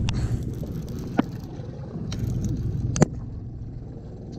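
Boat motor running steadily under the low rumble of the ride, with two sharp knocks nearly two seconds apart.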